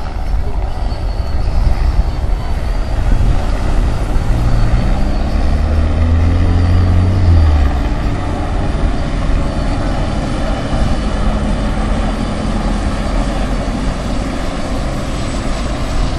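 Helicopter flying past, a steady engine and rotor drone whose pitch falls and loudness drops about seven or eight seconds in as it moves away.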